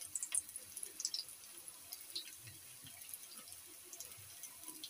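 Aloo cone samosas deep-frying in hot oil over low heat: a steady sizzle with scattered small pops and crackles.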